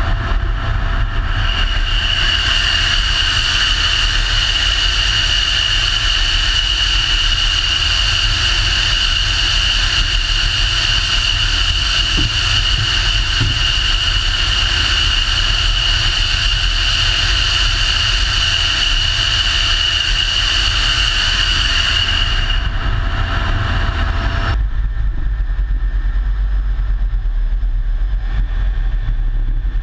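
Steady running noise of a vehicle: a constant low rumble with a high, even whine over it. The whine cuts off abruptly about 24 seconds in, leaving only the rumble.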